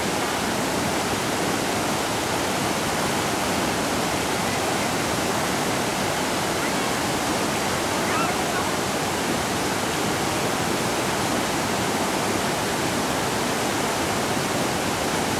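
Steady rush of water pouring over a falls and down the rapids, unbroken and even throughout.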